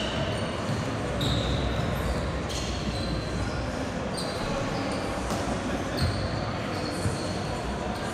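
Basketball bouncing on a hardwood gym court, with sneakers squeaking on the floor several times in short, high chirps.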